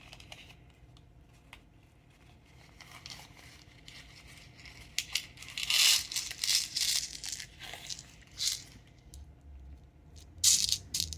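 Plastic packaging of a bead mix being handled and opened: crinkling and rustling in several short bursts, loudest about six seconds in and again near the end.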